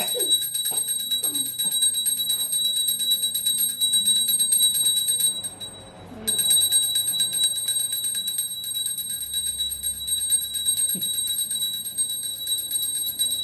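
Small brass puja hand bell rung rapidly and continuously during an offering, a steady high ringing that stops for about a second near the middle and then resumes.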